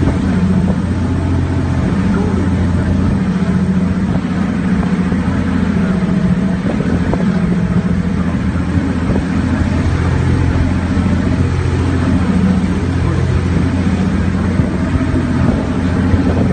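A tour boat's engine running with a steady low drone, under a constant rush of noise.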